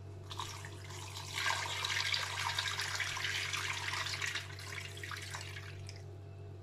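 Water poured from a glass bowl into a stainless steel cooking pot over a whole chicken: a steady splashing pour, heaviest in the middle and thinning out near the end.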